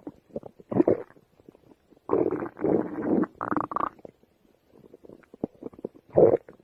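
Stomach growling in bursts: a short growl about a second in, a longer one lasting about two seconds from two seconds in, and another short one near the end, with faint small ticks between.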